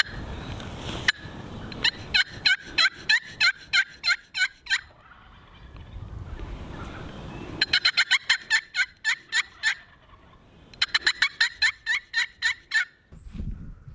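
Loud turkey calling: three series of quick, sharp notes, several a second, the middle series the fastest, after a single click about a second in.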